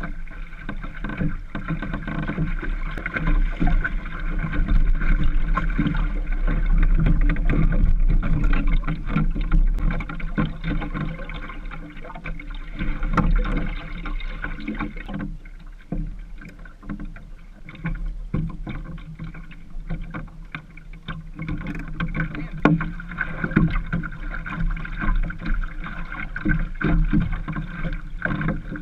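Water lapping and slapping against the hull of a small Naples Sabot sailing dinghy moving in light air, with many small irregular knocks over a steady low rumble.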